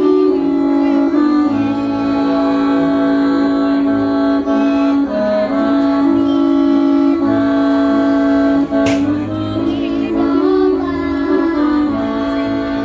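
Two young girls singing a Bunjevac folk song with instrumental accompaniment, in long held notes. A single sharp click about nine seconds in.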